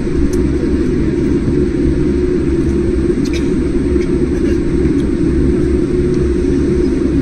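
Airliner cabin noise during takeoff, heard inside the cabin at a window seat over the wing: a steady, loud, low rumble of the jet engines and the airflow, with a couple of faint clicks.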